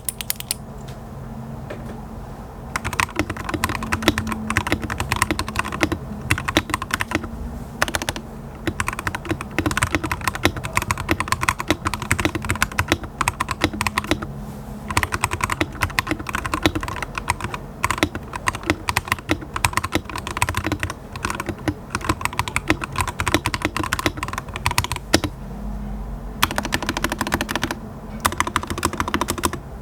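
Typing on a Mono80 TKL 80% mechanical keyboard with yellow switches: a steady run of keystroke clicks, broken by a few short pauses.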